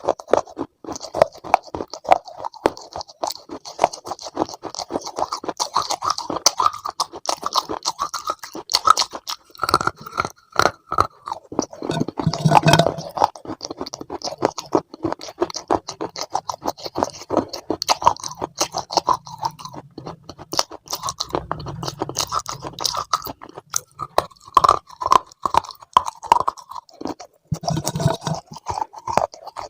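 A person chewing and crunching food close to the microphone, a continuous run of rapid crisp crackles and clicks that gets louder a few times.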